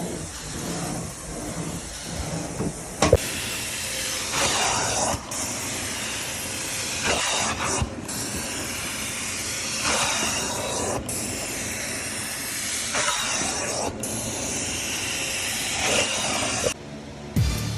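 Shark vacuum cleaner running on carpet: a steady hissing rush that swells about every three seconds as it is pushed back and forth.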